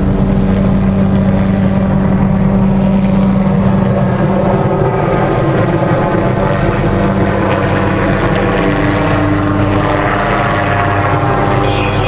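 Helicopter flying overhead, its rotor and engine running in a steady drone, the pitch rising slightly near the end as it comes closer.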